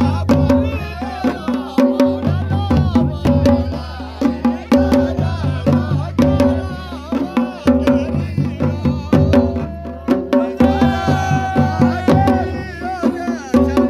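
Live Himachali Nati folk music: double-headed drums beaten with a stick and a hand in a fast, driving rhythm, under a pitched melody line with long held notes about ten seconds in.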